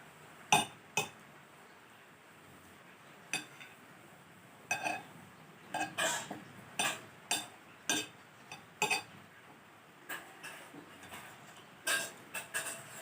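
Eating utensils clinking and tapping against a ramen bowl: about a dozen short, sharp clinks at irregular intervals, some with a brief ring.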